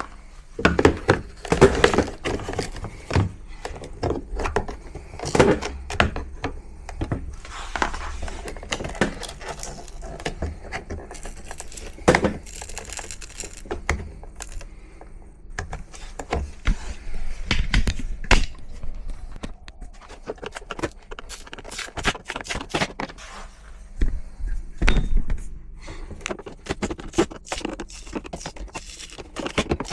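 Flat-headed screwdriver and fingers prying taped-on infrared sensor strips off the plastic housing of a Neakasa M1 smart litter box: irregular plastic clicks, knocks and scraping throughout.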